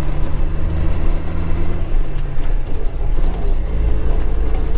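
Ford L9000 dump truck's diesel engine running, heard from inside the cab. Its note drops about halfway through as the truck eases off.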